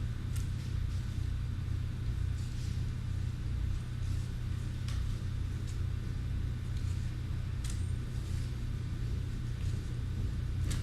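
Steady low rumble in the background, with a few faint clicks and scrapes a couple of seconds apart as Redgard is scooped from a cup into a mixing bucket of sand.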